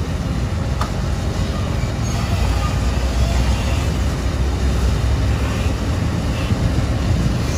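Hyundai 220LC-9S crawler excavator's diesel engine running with a steady low rumble while the machine swings its upper body round.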